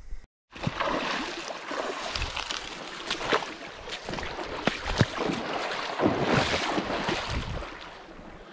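Footsteps wading through a shallow, rocky river: water sloshing and splashing with each step, with many sharp splashes. The splashing starts suddenly and eases off near the end.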